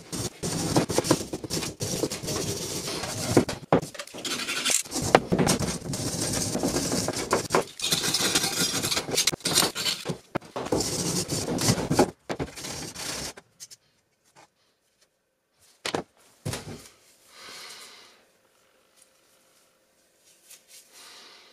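Rusty steel hammer head being scrubbed with a hand wire brush and scraped with a utility-knife blade to strip the rust, a rough, uneven scraping that stops about 13 seconds in. After it stop, two short knocks as the tools are set down on the wooden bench.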